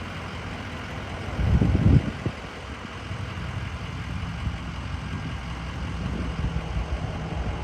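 Ambulance engine running at low speed while the vehicle is maneuvered, a steady low hum with a louder rumble about a second and a half in.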